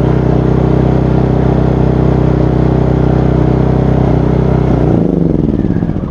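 GENMAX inverter generator engine running steadily, then shut off about five seconds in, its pitch falling as it winds down.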